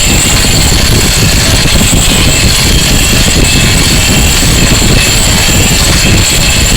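Cordless angle grinder with a diamond cup wheel grinding a concrete surface: a loud, steady grinding rumble under a high motor whine.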